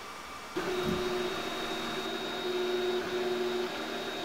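MakerBot Replicator Dual 3D printer running, its stepper motors whining in several steady tones that switch pitch every second or so as the extruder carriage moves. The sound starts abruptly about half a second in.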